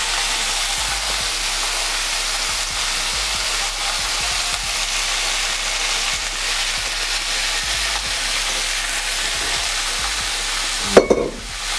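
Oil sizzling steadily under salmon fillets in a frying pan and a vegetable noodle stir-fry in a wok. A single sharp knock comes near the end.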